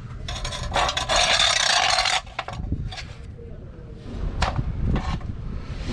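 A harsh scraping rub lasting about two seconds, then a few short sharp knocks, from hand work on a camper's rear stabilizer jack.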